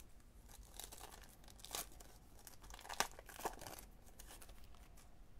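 A trading-card pack wrapper being torn open and crinkled: a run of irregular rustling rips, with the sharpest tears near the middle.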